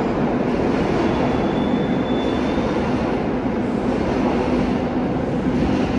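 New York City subway train running through the station: a steady, loud rumble with a low motor hum underneath and a faint high whine for a moment early on.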